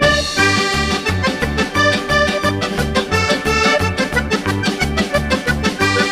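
Upbeat accordion music over a steady bass beat, with plucked strings.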